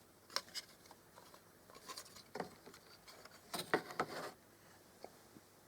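Faint clicks, taps and light rattles of a plastic knock-off Lego brick model being handled, with the clearest ones about two and a half and four seconds in.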